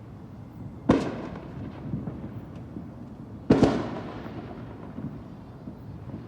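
Fireworks: two loud bangs about two and a half seconds apart, each followed by a long echoing rumble that fades away, with a few fainter pops between them.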